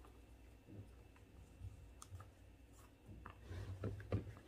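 Faint clicks and rustles of an On Cloudrock Waterproof hiking shoe being handled. In the last second or so they grow into a few louder knocks and scuffs as a foot is pushed into the shoe.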